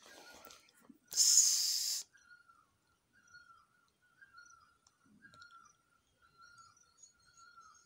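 A sharp hiss lasting about a second, starting about a second in, then faint short whistle-like calls, each slightly falling, repeated a little more often than once a second.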